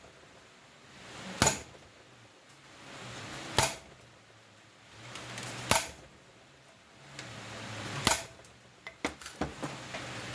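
Hand tools working on engine parts: a scraping sound that builds for about a second and ends in a sharp knock, repeated about every two seconds, four times, then a few light clicks near the end.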